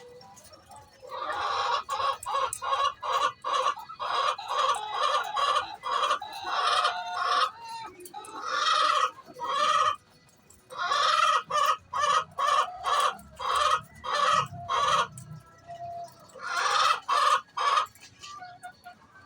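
Domestic hen's pre-laying cackle: rapid runs of short, loud clucks, several a second, repeated in bouts with brief pauses.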